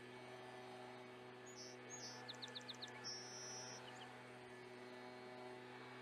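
A song sparrow sings one faint, short song about a second and a half in. It opens with two clear notes, runs into a quick series of notes and ends in a buzzy trill. A steady low hum runs underneath.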